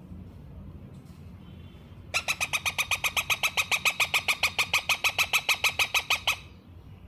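Ringneck parakeet chick calling in a fast run of short, even chirps, about eight a second, starting about two seconds in and stopping after about four seconds.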